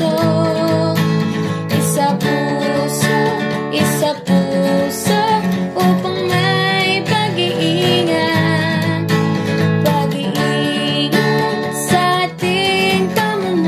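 Background music led by acoustic guitar, with a melody over a steady beat.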